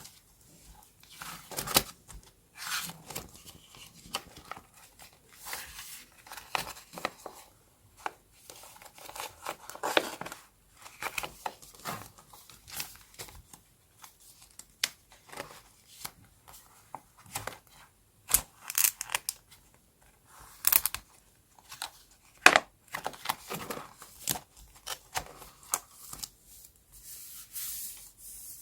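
Scrapbooking paper and stickers being handled: irregular tearing, rustling and crinkling, broken by a few sharp clicks and snips.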